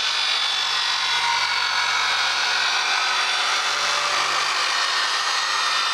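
Small corded rotary tool spinning a fibre sanding disc on a mandrel against a cast motorcycle wheel: a steady high whine with the hiss of the disc grinding off old silver paint.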